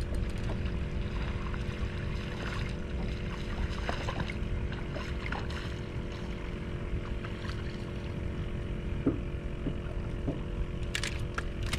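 Wind rumbling over the microphone and water lapping against a small fishing boat's hull, under a faint steady hum. A few sharp clicks come near the end.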